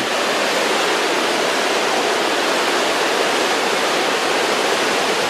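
Waterfall cascading down a rocky cliff: a steady, loud rush of falling water that cuts off suddenly.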